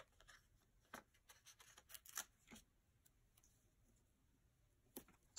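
Faint, scattered ticks and rustles of paper planner stickers and pages being handled and pressed down by hand, with a sharper click near the end.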